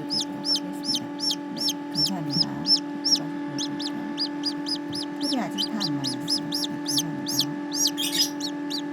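Newly hatched Serama chicks peeping constantly, short rising-and-falling peeps about three or four a second, over a steady low hum.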